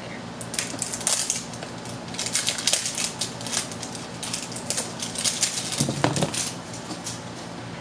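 Plastic seal band being peeled off a Funko Paka Paka blind-box capsule ball: a steady run of small sharp plastic crackles and clicks.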